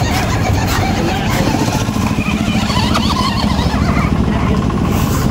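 Steady motor running noise with a low hum, from a battery-powered toy RC monster truck driving over grass.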